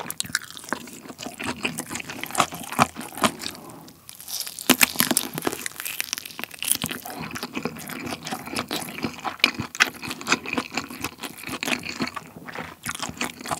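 Close-miked chewing of kielbasa sausage and fried rice: dense, irregular wet mouth clicks and small crunchy snaps, briefly easing off about four seconds in.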